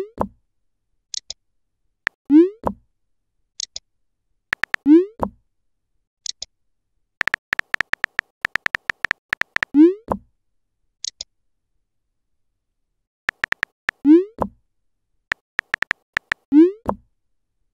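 Texting-app sound effects: quick runs of keyboard tap clicks, each followed by a short rising bloop as a message pops up, six bloops in all, with a few brief high chirps between them.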